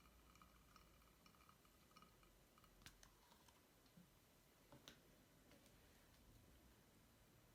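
Near silence, with a few faint, sharp clicks, two of them about three and five seconds in.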